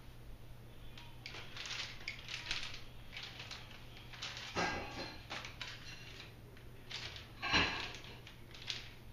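Plastic packaging wrap crinkling and rustling in irregular bursts as it is pulled off a new bike's handlebar and brake levers, with two louder crumples about four and a half and seven and a half seconds in.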